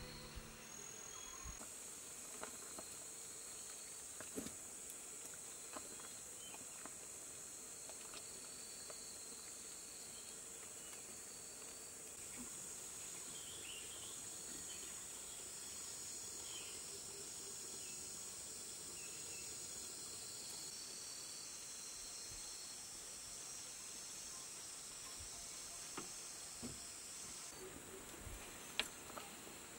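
Forest ambience: insects keeping up a steady high-pitched drone, with a few faint clicks scattered through it.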